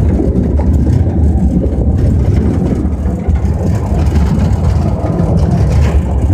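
Loud, steady low rumble of wind and road noise while riding in the open bed of a moving pickup truck.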